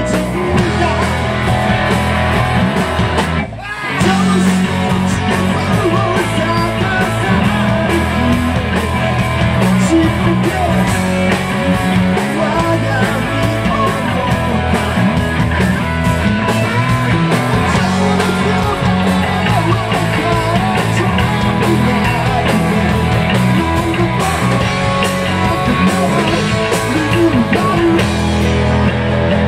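Live rock band playing loud, with electric guitar and drums. The music briefly drops back about three and a half seconds in, then returns at full force.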